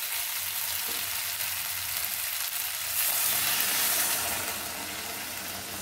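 Spiced drumstick and potato sizzling in hot oil in a steel pan, with a louder hiss about three seconds in as water is poured in from a steel bowl.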